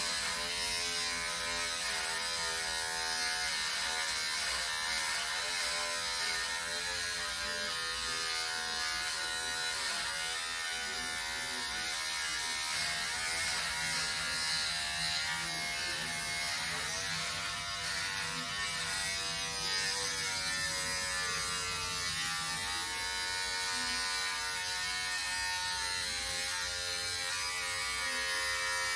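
Braun 6-in-1 electric shaver running steadily, its buzzing motor wavering slightly in pitch as it is used.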